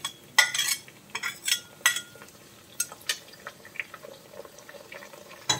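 Steel spatula clinking and scraping against a ceramic plate and a cast-iron kadai as sliced onions are pushed into the pan. The clinks come in a quick run over the first two seconds, one of them ringing briefly, then thin out to a few light taps.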